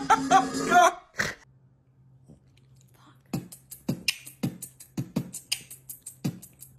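A snatch of singing or music breaks off about a second in. After a near-quiet stretch with a faint steady hum, a run of sharp clicks and taps starts about three seconds in, two or three a second.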